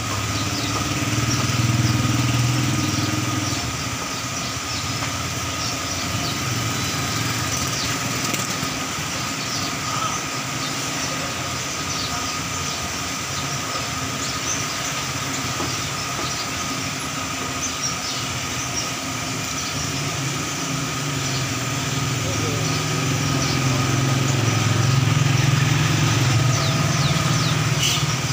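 Steady street traffic noise with motor vehicle engines running, the engine rumble swelling twice, about a second in and again near the end, as vehicles pass close by.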